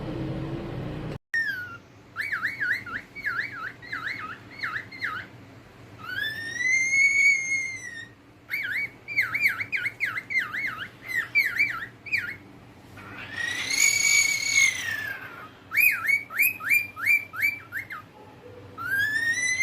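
Cockatiel whistling: runs of quick warbled notes, about five a second, broken by a few long whistles that rise and then fall in pitch.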